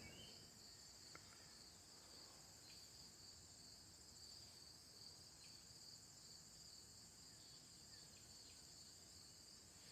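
Near silence, with a faint steady high-pitched insect chorus chirring throughout.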